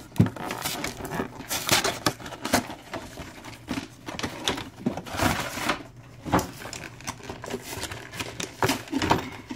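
Cardboard and plastic packaging of a Pokémon card collection box being handled and opened by hand: irregular rustling, scraping and sharp little clicks.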